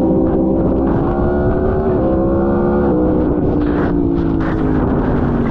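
Sport bike engine heard from onboard, revving up through a quick gear change and then easing off so the revs fall away, with wind rush on the microphone.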